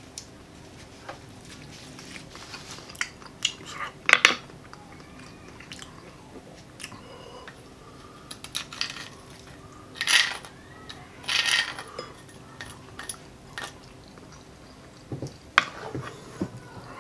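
Close-up eating sounds: a metal spoon scrapes and clicks against a split roasted marrow bone as the marrow is dug out, with chewing and wet mouth noises. Two longer noisy mouth sounds come about ten and eleven and a half seconds in, and sharp spoon clicks come near the end.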